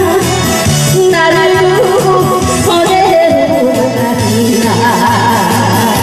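A woman singing a Korean trot song into a microphone over a backing track, amplified through a PA loudspeaker, with a steady pulsing bass beat.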